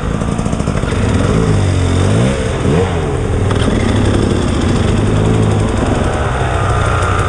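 KTM 300 XC two-stroke dirt bike engine revving up and down several times in the first few seconds, then running more steadily under throttle.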